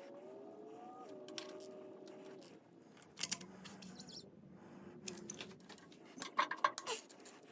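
Small metal clicks and clinks of a hand ratchet and socket working on an LS engine's connecting-rod bolts, with a brief squeak that rises and then holds in the first couple of seconds. A cluster of sharper clicks comes near the end.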